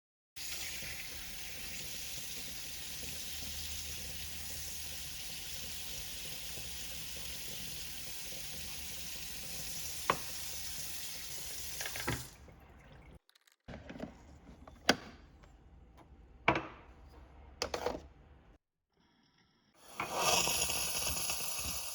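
Gaggia Carezza Deluxe espresso machine's steam wand hissing steadily for about twelve seconds while frothing milk. A few sharp clinks and knocks follow, then another short hiss near the end.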